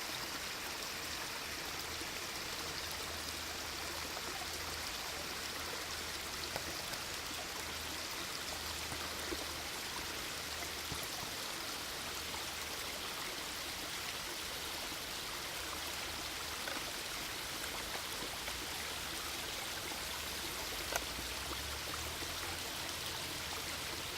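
Steady rush of flowing water, with a few faint ticks.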